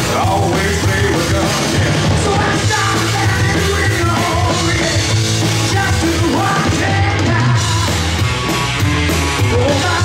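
Live rock band playing through stage amplification: distorted electric guitars, bass guitar and a drum kit, with singing.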